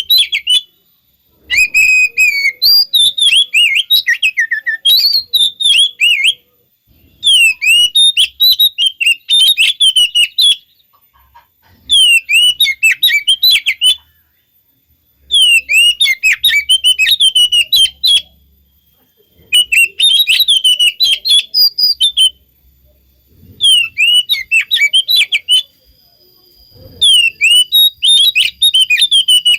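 Oriental magpie-robin (kacer) song: loud, rapid chattering and whistled notes in about eight bursts of two to four seconds each, separated by pauses of about a second. The song is played as a lure to provoke a kept kacer into answering.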